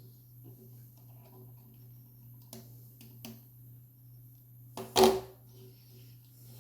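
Small clicks from computer hardware being handled during a RAM upgrade: a few faint taps, then one sharp click about five seconds in, over a steady low hum.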